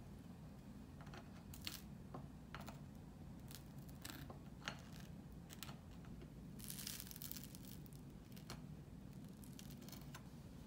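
Faint scraping of a knife spreading peanut butter and then cream cheese across crisp toasted bread. There are scattered light clicks of bread and knife on the plate, and a longer scratchy scrape about seven seconds in.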